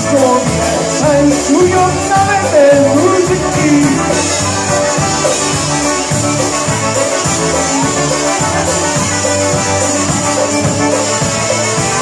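Live band playing with piano accordion, horns, guitar and drums over a steady beat; a sung or horn melody line carries the first few seconds, then the band plays on instrumentally.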